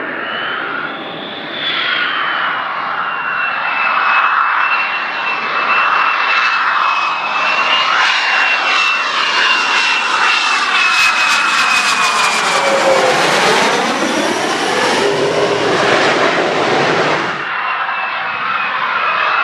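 Lockheed Martin F-22 Raptor's twin Pratt & Whitney F119 turbofans on a low approach: a steady high whine over a jet rumble that grows louder a couple of seconds in, with sweeping, phasing tones as the jet goes by. Near the end it cuts off suddenly to the quieter sound of the jet approaching from further away.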